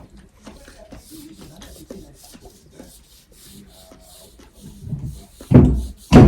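Faint, quick eating sounds: fruit being chewed close to the microphone. Near the end come three loud, short rubbing bumps.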